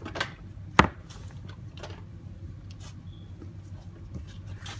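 A sharp plastic click about a second in, then a few lighter clicks and handling noises over a low steady hum, with another click near the end: the battery charger's mains plug being pushed into a wall socket and the power switched on.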